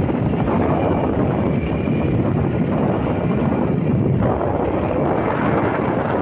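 Steady wind rush over the microphone and road noise from a vehicle moving along a road.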